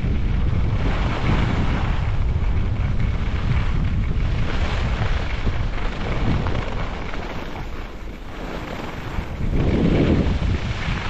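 Wind buffeting the microphone of a camera carried on a fast downhill ski run: a heavy, continuous low rumble with irregular surges of hiss. It dips briefly about eight seconds in, then swells again.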